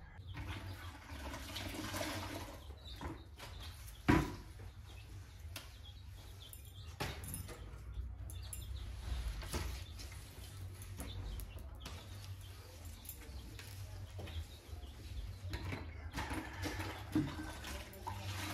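Water splashing and trickling, with scattered knocks and a sharp knock about four seconds in.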